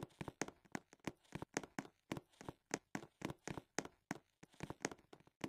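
Faint, irregular clicks and taps, several a second, with near silence between them.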